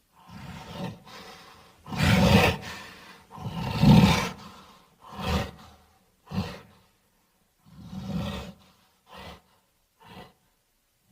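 Sound-effect roars and growls of a cartoon tyrannosaur: a string of about eight separate calls, the two loudest in the first half, followed by shorter, quieter grunts toward the end.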